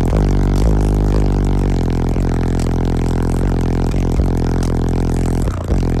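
High-powered car audio subwoofer system playing loud, bass-heavy music, heard from inside the vehicle. The deep bass notes change about twice a second.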